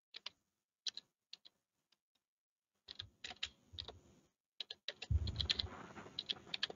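Keystrokes on a computer keyboard typing a short phrase: a few scattered taps at first, then quicker runs of keys from about three seconds in. A low rumble joins the typing about five seconds in.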